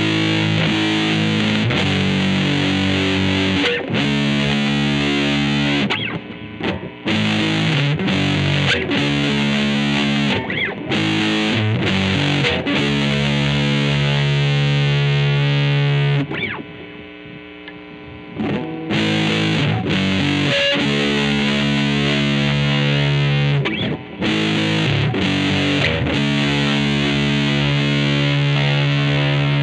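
A 1994 Mexican-made Fender Stratocaster with GFS Jimi reverse pickups, played through distortion. Chords are strummed and left to ring. About halfway through the playing drops to a quieter ringing for a couple of seconds, then the chords come back loud.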